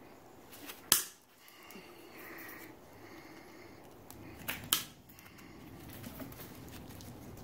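Diagonal cutting pliers snipping plastic cable ties off a jet-ski throttle cable: one sharp snap about a second in, then two more in quick succession around four and a half seconds in, with soft rustling of gloves and cable between.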